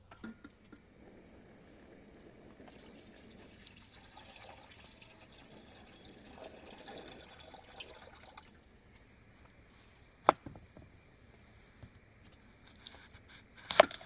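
Liquid pouring for several seconds, then two sharp knocks about three and a half seconds apart, the second the loudest.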